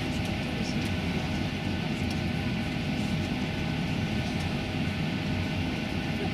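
Steady hum and rush of air inside a Boeing 737 cabin parked at the gate, with the air conditioning running. A few faint steady tones sit in the hum.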